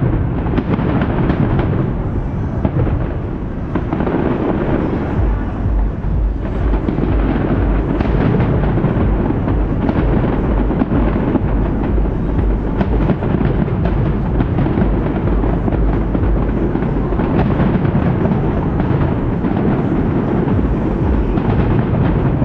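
Fireworks display: many bursts going off in quick succession, running together into a continuous low rumble.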